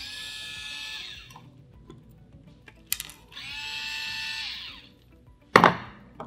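Cordless electric screwdriver running twice in short whirs of about a second and a half, backing out the 3x6 mm countersunk screws of an FX Impact's trigger base housing plate. There is a click between the runs and a sharp knock near the end.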